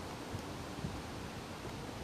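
Wind on the microphone: an uneven low rumble over a steady hiss.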